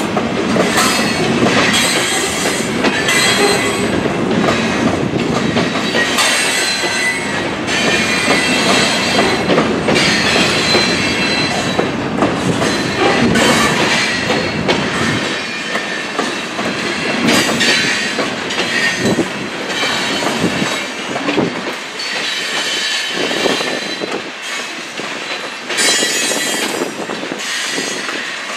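Loaded covered hopper cars of a freight grain train rolling past over the grade crossing, with the wheels clacking over the rail joints and squealing in a high pitch. The deep rumble fades about halfway through, leaving mostly the wheel squeal and clatter.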